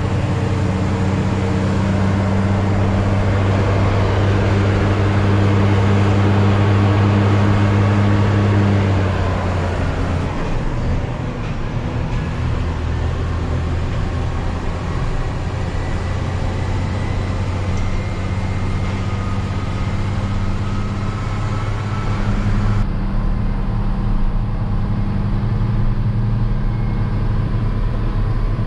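Hino 500 diesel truck engine running steadily on the road, with tyre and road noise; about nine seconds in the engine note drops and then carries on at a lower, even level.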